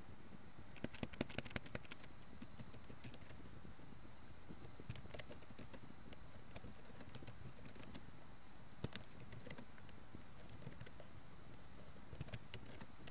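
Keystrokes on a computer keyboard while typing: a quick run of louder clicks about a second in, then sparser, irregular soft clicks, over a steady hiss.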